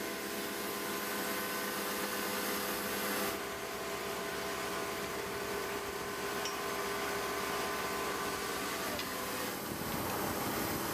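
Steady mechanical drone of running site machinery, with several steady humming tones over a hiss.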